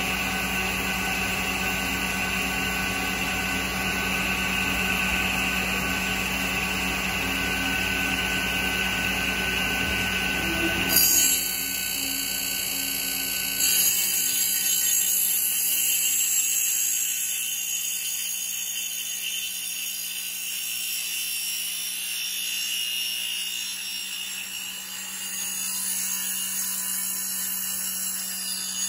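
CNC machine's circular saw blade spinning with a steady whine as it cuts along the edge of a Japanese cedar slab. The sound changes abruptly about 11 seconds in, with short loud hits there and again a few seconds later, then grows thinner and softer.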